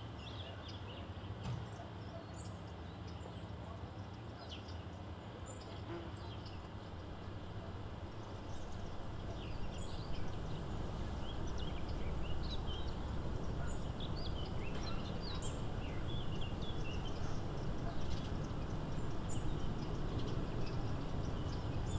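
Small birds chirping in short, scattered calls over a steady low rumble of outdoor background noise, which grows louder about ten seconds in.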